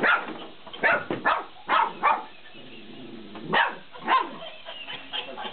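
50-day-old Belgian Malinois puppies barking and yapping in play, about seven short, high barks at uneven intervals.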